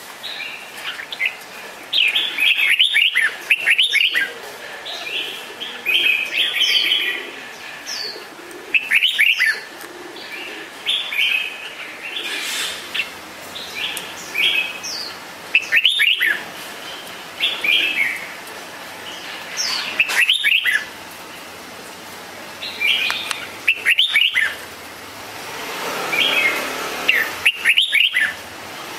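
Red-whiskered bulbul singing: short, quick, bubbly whistled phrases, repeated every two to four seconds.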